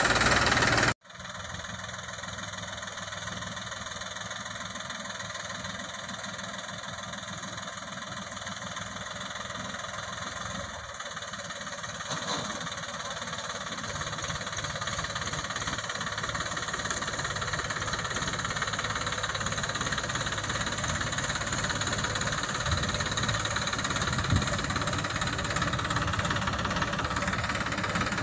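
New Holland 3230 tractor's diesel engine running as it hauls a trailer piled high with paddy straw. After a sudden cut about a second in it is farther off, and it grows steadily louder as the tractor comes nearer.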